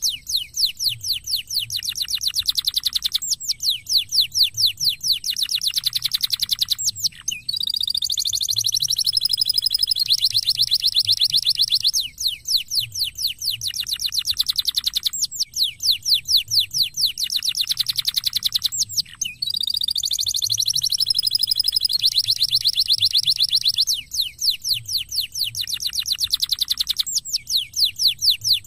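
Domestic canary singing a long, unbroken song of fast trills, each roll a rapid run of repeated high notes lasting a few seconds, with two warbled, wavering phrases woven in.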